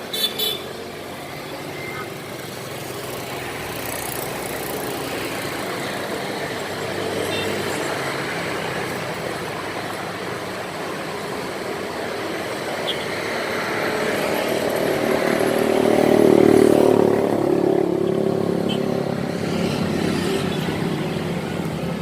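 A motor vehicle's engine running steadily, growing louder to a peak about sixteen seconds in and then easing off.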